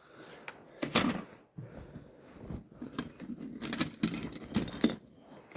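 Small metal hand tools clinking and rattling together as they are handled, a run of sharp clicks and jingles that stops about five seconds in.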